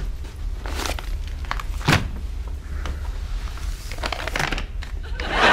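Steady low room hum with scattered soft rustles and small clicks, and one sharper knock about two seconds in.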